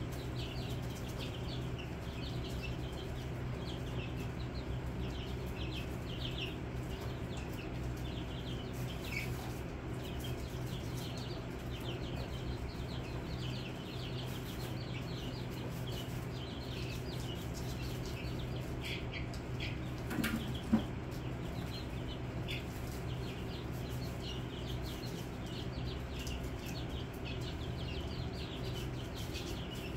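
A flock of young chicks peeping continuously, many short high cheeps overlapping, over a steady low hum. One sharp knock about two-thirds of the way through.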